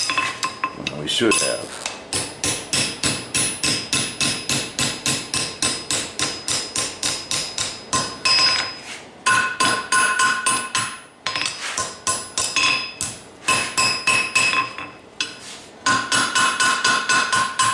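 A blacksmith's hammer striking a steel bar on the anvil in a steady rhythm of about three blows a second, bending the bar for a chain repair link. Each blow leaves a bright ringing tone from the anvil. The hammering stops briefly a few times.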